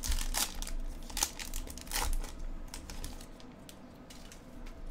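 The wrapper of a 2021 Topps Heritage baseball card pack being torn open and crinkled, with several sharp crackles in the first two seconds or so, then softer rustling as the cards are handled.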